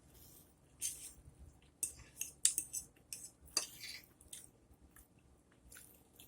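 Cutlery clinking and scraping against a dinner plate while eating, a cluster of sharp clicks through the middle seconds, with soft chewing sounds.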